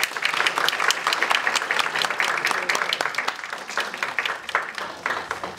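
A small audience applauding, many hands clapping together, tapering off near the end.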